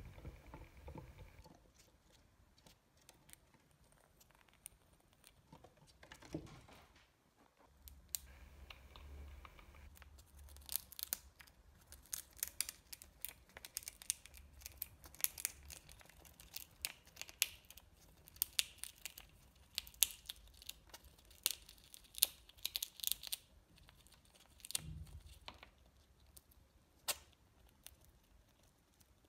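Squirrel gnawing and cracking a nut shell with its teeth: rapid crackling and crunching clicks, densest from about a third of the way in until near the end.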